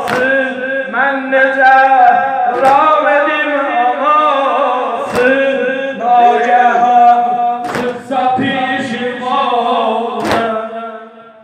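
A male eulogist chanting a Shia mourning lament (noha) into a microphone. A group of mourners beat their chests in unison, one loud strike about every two and a half seconds, five in all.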